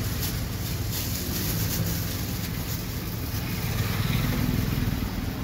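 A steady low hum of an engine running.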